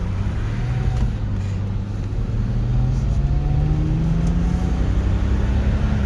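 2007 BMW 525i's straight-six engine running under way, its tone rising slowly as the car gathers speed. The engine has a cylinder-one misfire, which has just lit the check-engine light and which the mechanic puts down to a faulty ignition coil.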